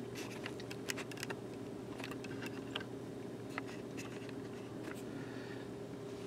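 Stainless steel stovetop percolator perking: irregular small pops and gurgles as boiling water is pushed up the stem into the glass top. A steady low hum runs underneath.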